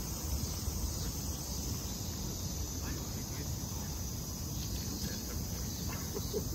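Cicadas singing in a steady, high-pitched chorus over a low background rumble.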